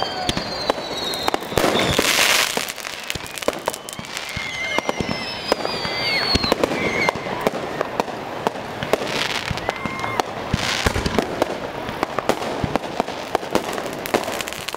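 Fireworks going off in a dense run of sharp cracks and bangs with crackling, with high whistles that glide down in pitch. Louder bursts come about two seconds in and again around nine and eleven seconds.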